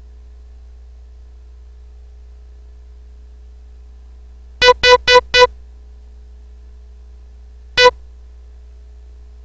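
Morse code practice tone: four short dits in quick succession, then after a pause of about two seconds a single dit, the letters H and E spelling the word "HE". A steady faint low hum runs underneath.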